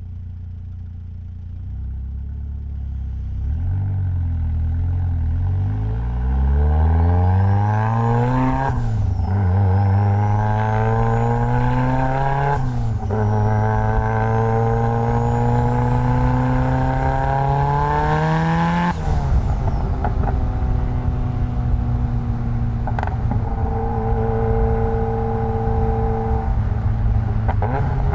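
Mitsubishi Lancer Evolution X's turbocharged 2.0-litre four-cylinder accelerating hard through the gears: the engine note climbs in pitch and drops sharply at each of three upshifts, then holds steady as the car cruises. A faint high whine rises and falls with the revs.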